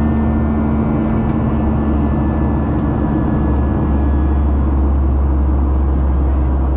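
Airliner cabin noise in flight: the steady, loud rumble of a Boeing 737's jet engines and the rush of air past the fuselage. A hum at the start fades about halfway through as the deep rumble grows a little.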